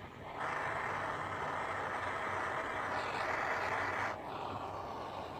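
Soldering torch flame hissing steadily while it heats silver nameplates to flow the solder. It comes on about half a second in and eases slightly after about four seconds.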